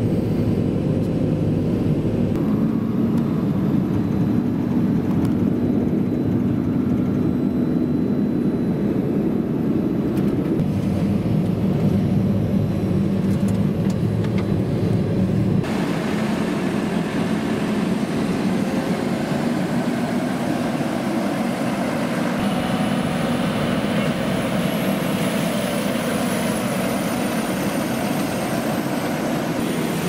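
Large tractor diesel engines running steadily under load. About halfway through, the sound changes suddenly to a mix with less low hum and more hiss, and a faint high whine comes in near the end.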